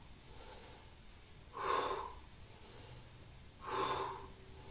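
A man breathing out forcefully on the effort of each crunch, twice, about two seconds apart.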